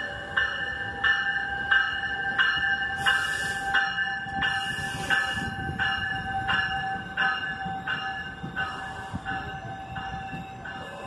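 NJ Transit bi-level commuter train pulling into a station: its bell rings steadily at about three strokes every two seconds over the low rumble of the passing cars. Two short hisses come about three and four and a half seconds in.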